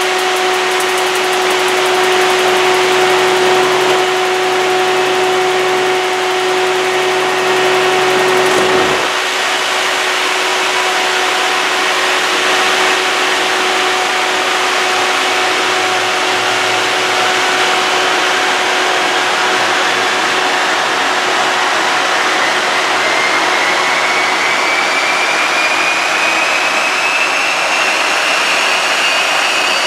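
Orenda turbojet engine starting up: a steady whine for about the first nine seconds, then a sudden change about nine seconds in to a rushing roar, with a whine that climbs steadily in pitch from about a quarter of the way through as it spools up. This is a startup fire: fuel that pooled during the start burns out of the tailpipe at low RPM and is blown out as the engine gains speed, which is normal for these old turbojets.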